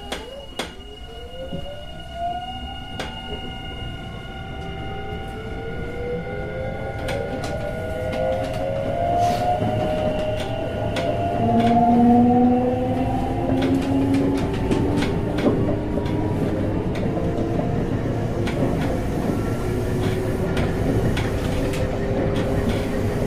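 Semboku Rapid Railway 7020 series electric train pulling away and accelerating. The traction motor and inverter whine rises in pitch in several overlapping steps, and the wheels click over rail joints, the whole growing louder as speed builds.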